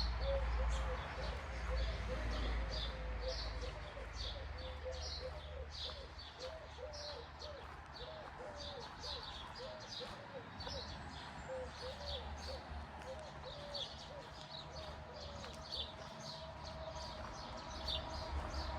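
Birds chirping, short high calls repeating about twice a second, over a steady low rumble.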